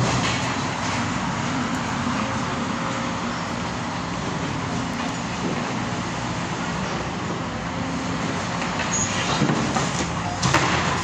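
Demolition excavator's diesel engine running steadily while its grab works rubble over a steel skip, with debris clattering; a few sharp knocks near the end.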